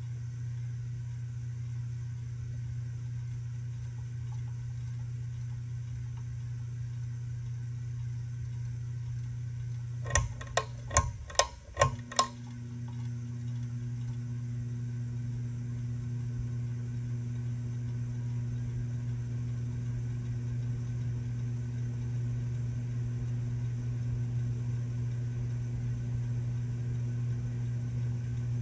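Motor of a 2015 Savoy House 52-inch ceiling fan humming steadily at close range. About ten seconds in comes a quick run of about six sharp clicks over two seconds, after which a second, higher hum tone joins in.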